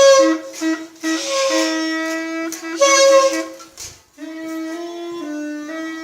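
Music played on wind instruments: two lines of held notes moving in steps, a lower line and a higher one. There are three louder, brighter swells in the first half, then a brief break just after four seconds before the notes go on.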